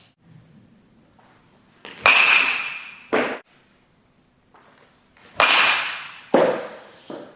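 A metal baseball bat hits a ball twice, about three and a half seconds apart. Each hit is a sharp ping with a brief metallic ring. A shorter, duller thud follows each hit about a second later.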